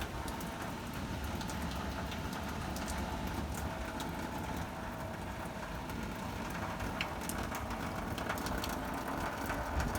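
Steady rain falling, with many small drop ticks over an even hiss and a low rumble underneath.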